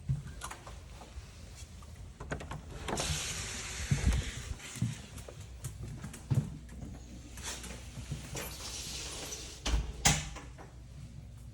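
Footsteps and scuffing on the trail, with two longer scraping, hissing stretches and a couple of heavier knocks, the loudest about four seconds in and near ten seconds.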